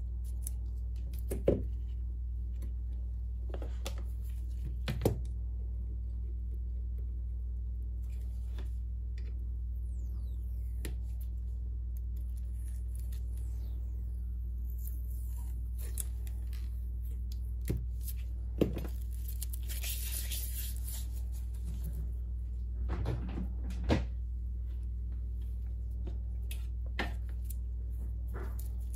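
Scattered light taps and clicks of gloved hands and tools handling an opened Samsung Galaxy Note 9 phone on a silicone repair mat, with a brief scratchy rustle about two-thirds of the way through. A steady low hum runs underneath.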